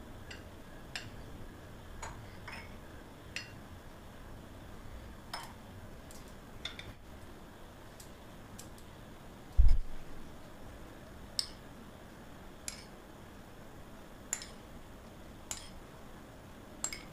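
Metal spoon clinking lightly against drinking glasses as rose syrup is spooned in, a scattered series of short ticks, with one dull low thump about ten seconds in.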